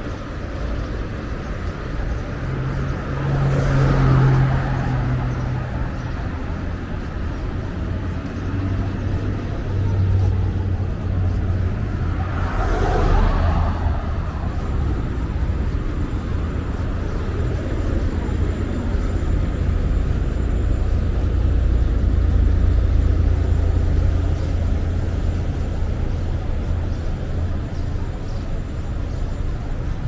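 Street traffic: a steady low rumble of cars, with vehicles passing close by about four seconds in and again about thirteen seconds in.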